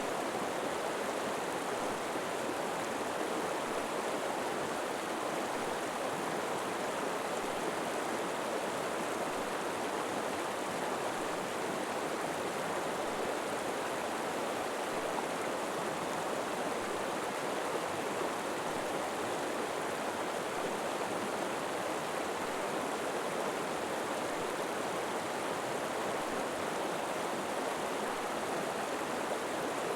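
River water flowing and rushing steadily, an even continuous wash of water noise with no distinct splashes or changes.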